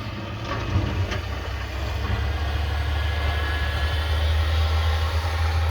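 Snowplow truck's engine running with a steady low drone, getting gradually louder as it approaches.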